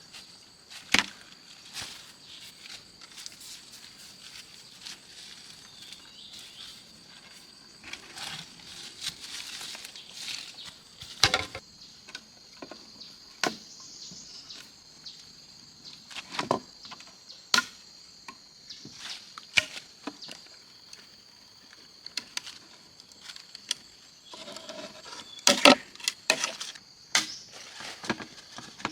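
Insects droning steadily at a high pitch, with scattered sharp knocks and chops over it, the loudest coming in a quick cluster near the end.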